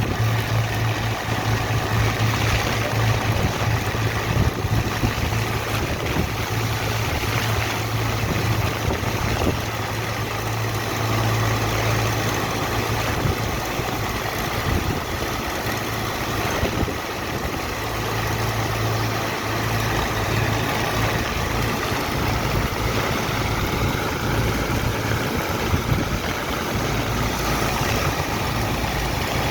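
Engine of a sand-unloading dredger and water pump running steadily, with a strong low hum under a constant rushing noise.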